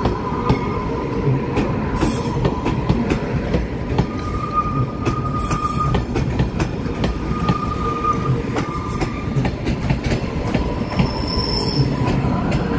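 TRA EMU500 electric multiple unit running slowly into the station: steady rumble with wheels clicking over rail joints, and a high wheel squeal that comes and goes.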